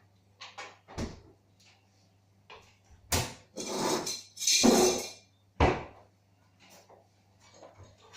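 Objects being handled on a hard surface: several sharp knocks, with two longer noisy scrapes in the middle, the loudest about halfway through.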